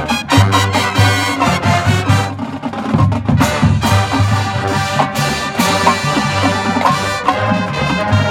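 University marching band playing loudly, brass over drums and percussion with a steady beat.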